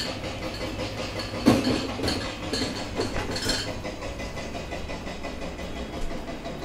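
Steady construction-machinery noise with a fast ticking in the background, and a few knocks from glass jars and the fridge being handled, the loudest a sharp knock about a second and a half in.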